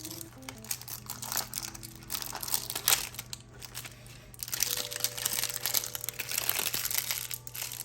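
Thin plastic wrapping of a Disney Mini Brands capsule ball crinkling as it is peeled open by hand, in uneven rustles with a sharper crackle about three seconds in.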